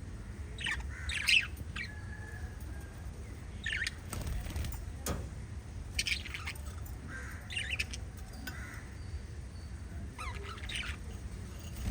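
Pet lovebirds giving short, scattered chirps and squawks, one every second or two, over a low steady background rumble.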